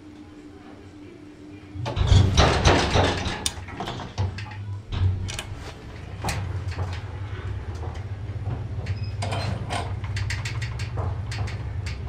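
1940s Otis goods lift working: a loud clattering start about two seconds in, then a steady low hum as the car travels, with scattered light clicks and rattles.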